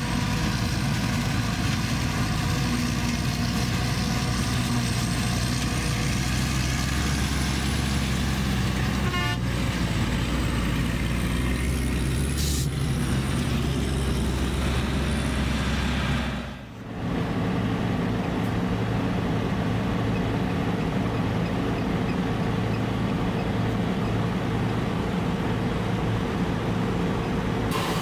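Claas Jaguar 970 forage harvester running steadily as it chops corn for silage, a droning machine hum with a faint high whine over it. Partway through the sound changes abruptly to another steady engine drone: a truck tipping chopped corn into a silage bagging machine.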